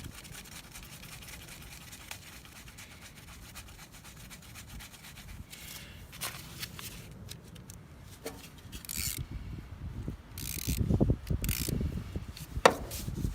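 Hand work on the generator's oil drain, likely putting the drain plug back: rubbing and scraping of parts and tools, heavier handling bumps toward the end, and one sharp click near the end.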